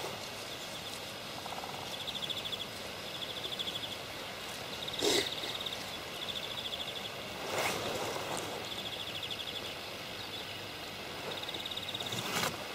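Short, high, buzzing trills from a calling animal, each about half a second long and repeated every one to two seconds, over a steady outdoor hiss. Three brief rustle-like noises break in, the loudest about five seconds in.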